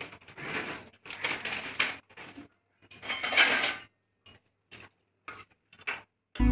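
Pasta and a steel spoon clattering and scraping in an aluminium kadai, in a string of short separate bursts with brief silent gaps between.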